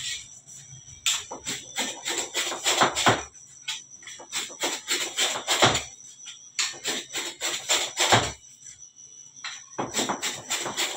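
Metal dough cutter chopping quickly against the table, cutting long dough logs into bread-roll portions. It comes as rapid runs of sharp taps, each a second or two long, with short pauses between them.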